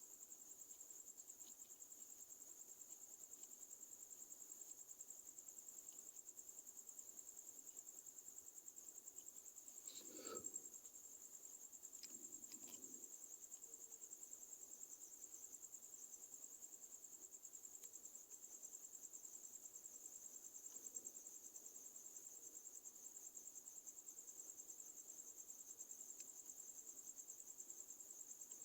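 Faint, steady, high-pitched insect trill, typical of a cricket, with a few soft knocks about a third of the way in.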